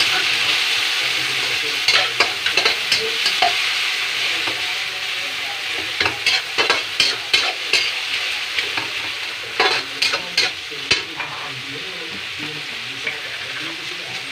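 Chopped tomato, onion and spring onion sizzling in hot oil in an aluminium wok, with a metal spatula scraping and clicking against the pan in several spells as they are stirred. The sizzle eases a little toward the end.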